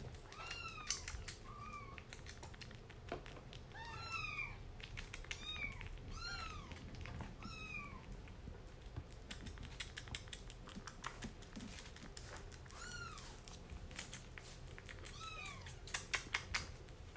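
Kitten mewing in about a dozen short, high calls that rise and fall in pitch, mixed with sharp clicks and taps of eating wet food from a ceramic bowl. A few louder clicks come near the end.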